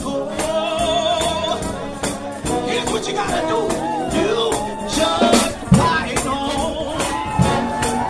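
Lively gospel music: a pitched lead with vibrato, most likely voices, over a fast, steady tambourine-like percussion beat.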